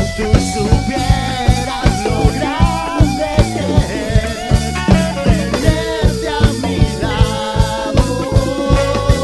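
Live Latin fusion band playing a fast, steady groove on drum kit, hand drums, bass, keyboard and guitars, with a wavering melody line on top.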